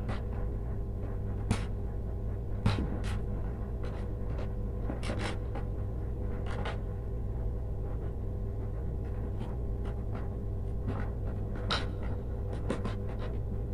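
Scattered small clicks and scratches of insulated copper wires being twisted together with combination pliers and handled at a plastic junction box, over a steady low hum.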